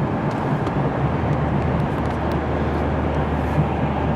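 A car driving at highway speed: steady tyre and road noise heard from inside the cabin, with a low hum that comes in about a second in.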